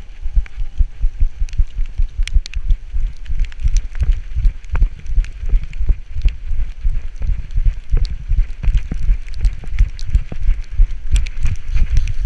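Rhythmic low thumping, about three or four beats a second, from a running Labrador retriever's strides jolting a harness-mounted action camera on her back, with sharp clicks and rustles from the leaf litter and brush she runs through.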